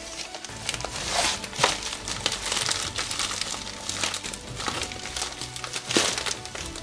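Plastic padded mailer bag crinkling and rustling in irregular bursts as hands pull it open, with a couple of louder crackles; background music plays underneath.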